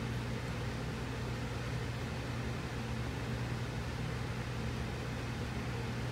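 Steady low hum with an even hiss over it, unchanging throughout: constant background machine or room noise.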